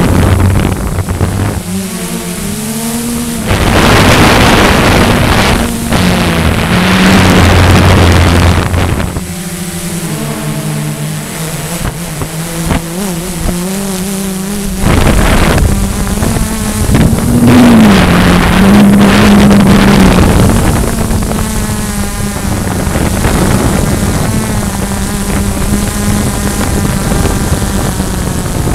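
Walkera QR X350 quadcopter's brushless motors and propellers buzzing in flight, heard from its onboard camera. The pitch wavers up and down as the throttle changes, with several loud rushes of wind over the microphone.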